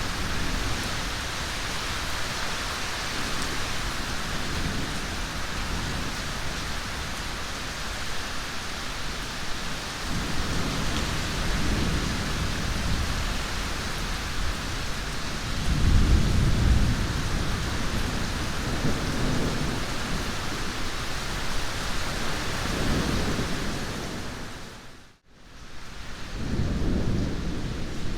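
Steady heavy rain with rolling thunder: low rumbles swell several times, the loudest about 16 seconds in. About 25 seconds in the sound dips briefly to almost nothing before the rain and thunder return.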